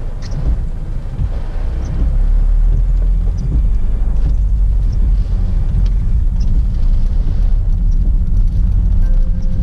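Steady low road and engine rumble inside the cabin of a first-generation Honda Freed driving in typhoon rain, with faint irregular ticks scattered through it.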